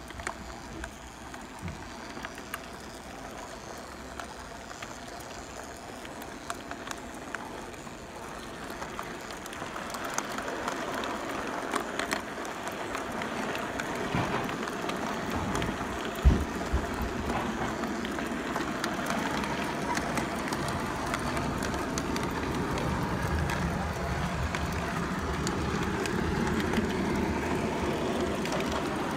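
Electric model train, a steam-outline locomotive pulling passenger cars, rolling along shelf track laid on carpet. Its running noise grows steadily louder as it approaches, with one sharp click about halfway through.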